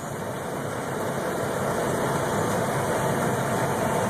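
Gleaner R-65 combine running while harvesting wheat, heard from inside the cab as a steady machinery drone that grows slightly louder over the first couple of seconds and then holds steady.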